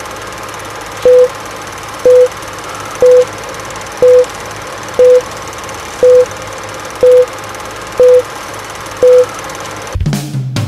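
Film-leader countdown sound effect: a short single-pitch beep once a second, nine beeps in all, over a steady rattling old-projector noise. Near the end the beeps stop and a brief low sound follows.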